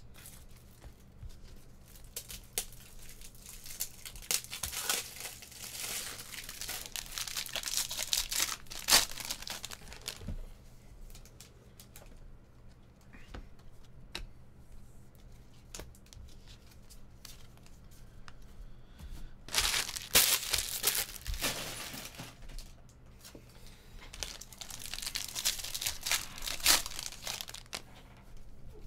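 Stiff chrome baseball cards being flipped through and shuffled in the hands: crinkly, papery rustling and sliding, with sharp little clicks as cards snap past each other. It comes in three spells: a long one in the first third, a short sharp one about two-thirds in, and another near the end.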